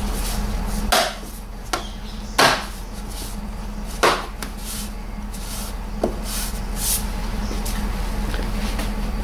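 Sharp plastic knocks and clicks as the rear light cluster is pressed and tapped home into the car body. There are three main knocks about a second apart, the loudest about two and a half seconds in, with lighter taps after them, over a steady low hum.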